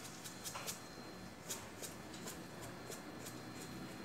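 Salt grains being sprinkled onto cut kamangeg root pieces in a pot, making faint, irregular light ticks over a low background hiss.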